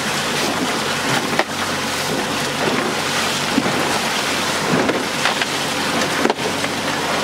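Steady wind noise on the microphone and sea noise aboard a small fishing boat, with a few light knocks from gear being handled.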